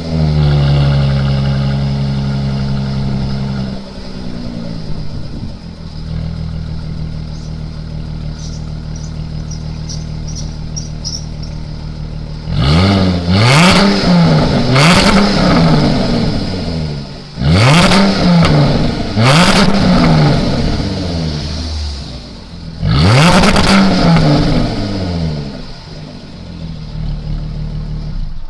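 Jaguar F-Type's supercharged V6 and exhaust, standing still: held at raised revs, then dropping to idle about four seconds in. After a spell of idling come three bursts of quick throttle blips, each rev rising and falling back, with idle between the bursts and at the end.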